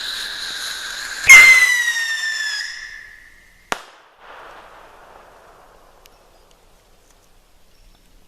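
A bottle rocket goes off with a sudden loud whoosh and a high whistle that slowly falls in pitch, then bursts with a single sharp bang about two seconds later. A faint echo rolls off after the bang and fades.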